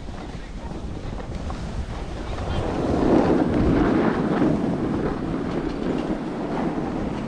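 Snowboard sliding and scraping over snow with wind buffeting the microphone, a rushing noise that builds to its loudest about three seconds in and then eases a little.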